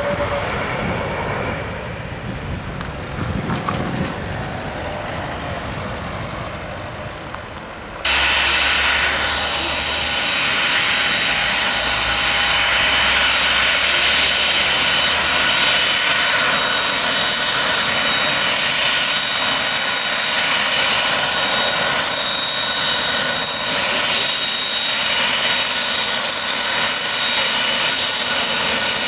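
An Embraer E175 jet airliner's engines on the runway, fading as it moves away. About a third of the way in this gives way suddenly to a Hawker 850XP business jet taxiing close by: a louder, steady turbofan whine with several high tones.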